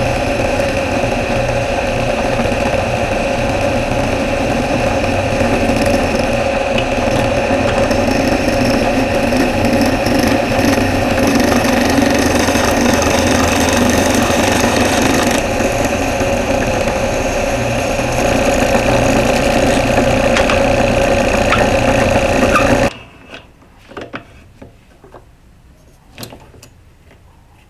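Drill press running at 700 RPM with a half-inch square end mill side-milling a pine board: a steady motor hum with a constant whine and the rasp of the cut. About four-fifths of the way through it stops abruptly, leaving a few light knocks as the board is handled.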